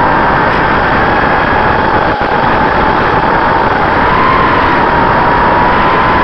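Racing quadcopter's motors and propellers heard from its onboard camera: a high motor whine that wavers slightly in pitch with throttle, over heavy rushing propeller-wash noise, with a brief dip about two seconds in.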